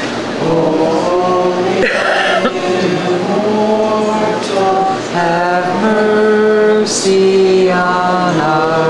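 Orthodox liturgical chant: voices singing long held notes that move in steps from one pitch to the next.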